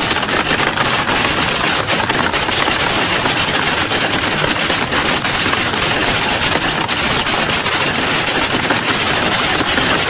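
Many keyboards being typed on at once, a dense, steady clatter of key strikes with no pauses.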